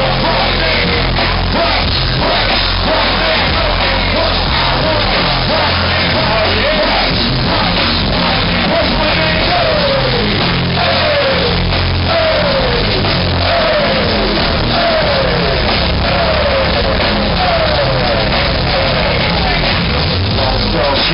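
Live band music over a concert PA, heard from the audience: steady heavy bass, sung vocals, and a run of short falling slides in pitch repeating through the second half.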